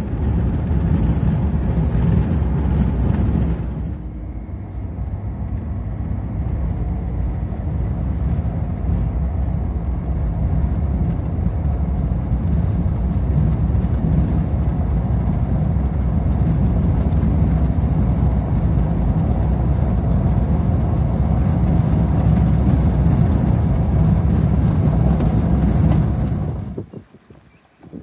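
A motor vehicle running steadily with a low engine rumble. The hiss over it thins out about four seconds in, and the sound falls away shortly before the end.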